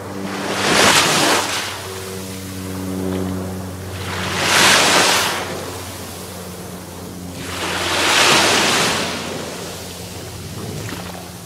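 Small waves breaking and washing onto a pebbly shore, three surges a few seconds apart. Under them, low sustained notes of background music.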